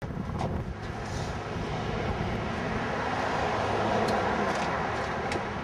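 Distant engine noise, swelling about three to four seconds in and then easing off, with a few faint clicks.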